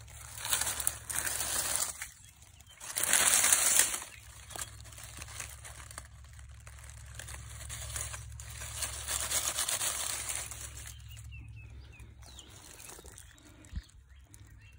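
Dry leaf litter and plant stems rustling and crackling as a hand parts the undergrowth and plucks a morel mushroom from the ground, in louder bursts in the first four seconds and again around eight to ten seconds in.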